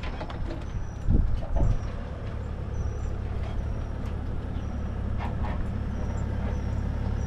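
Boat's outboard motor running steadily at a low pitch, with a couple of heavy thumps a little over a second in.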